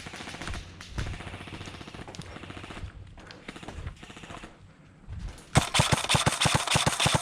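Airsoft rifle firing a rapid full-auto burst of about a second and a half near the end, with scattered sharp shots and clicks before it. The shooter says the gun fires on auto even when switched to semi.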